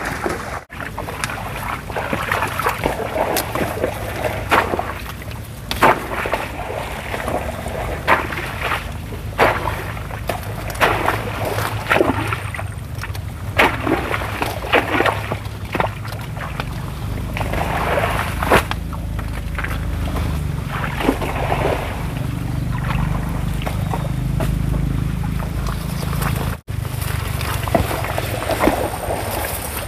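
Leafy stalks of yellow velvetleaf (genjer) rustling and snapping sharply as they are picked by hand, many short snaps at uneven intervals. Under them runs a low rumble of wind on the microphone, stronger in the second half.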